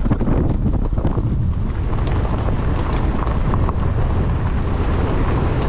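Heavy wind buffeting the microphone of a camera held out of the window of a car moving along a dirt road.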